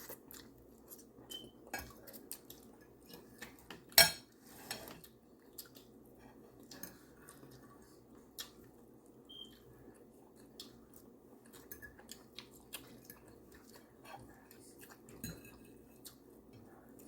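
Cutlery clinking and scraping on plates at a meal, with scattered small knocks and some chewing; one louder clatter about four seconds in.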